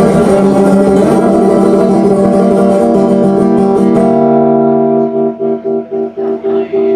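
Guitar playing. After about five seconds it settles into a held chord pulsing about four times a second, which stops abruptly near the end.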